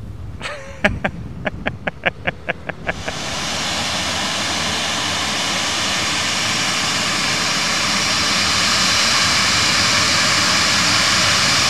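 A short quick run of pitched beeps, about four a second, then the CFM56 turbofans of a Jet2 Boeing 737-800 spooling up to takeoff thrust: a steady noisy rush that comes in about three seconds in and grows gradually louder.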